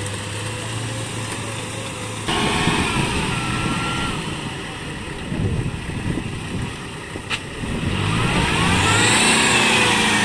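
Off-road vehicle engine running steadily; about two seconds in it cuts to a Toyota Land Cruiser 70 on big mud tyres under load in deep mud, its engine revving up and down as it pushes through, with a short sharp click in the middle.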